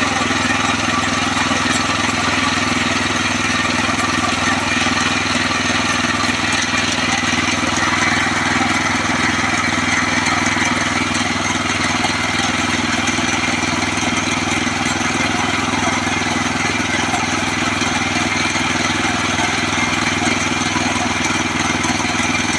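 Portable band sawmill's gas engine running steadily as the band blade saws through a log.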